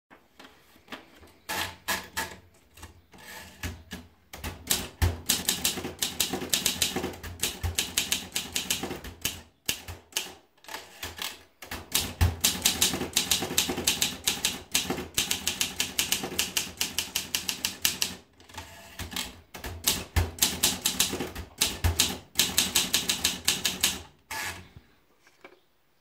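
Olympia SM2 portable manual typewriter: a sheet of paper is fed in with scattered clicks over the first few seconds, then the keys are typed in fast runs of sharp strikes, broken by a few short pauses.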